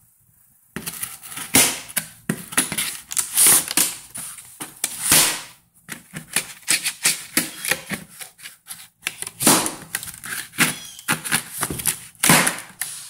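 Plastic packing straps on a cardboard box being cut and pulled with a hand cutter, with the box handled: an irregular run of clicks, snaps and rustling scrapes, a few of them louder.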